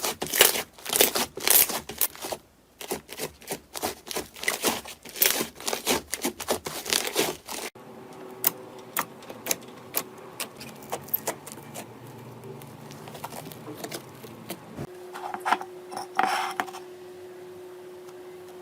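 Slime being handled, giving rapid crackles and sticky pops. About eight seconds in it cuts to a quieter clip with only occasional clicks over a faint steady hum.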